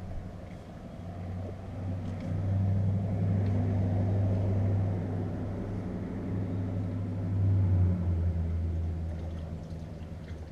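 A motor vehicle's engine droning low, growing louder over the first few seconds, peaking about eight seconds in and then fading, as of a vehicle going past.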